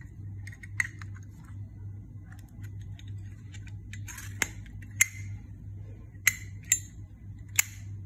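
A 1963 Zippo slim lighter being handled, giving about six sharp metallic clicks and clinks as the insert goes in and out of the chrome case and the hinged lid is closed. The loudest click comes about five seconds in.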